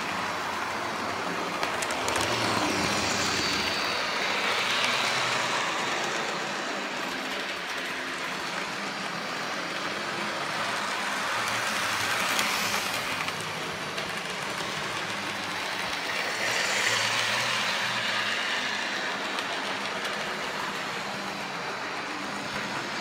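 Model diesel locomotive running on the layout track, a steady whirring of its motor and wheels on the rails. It grows louder twice as the locomotive passes close by.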